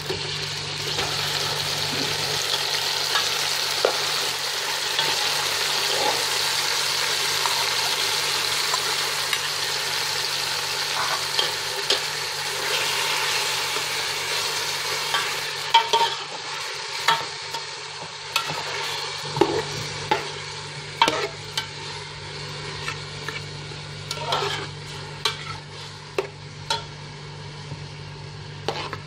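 Chopped tomatoes sizzling in hot oil with onions in a steel pot. The sizzle is strongest in the first half; from about halfway the sizzle is quieter, and a metal spoon stirring clicks and clinks against the pot many times.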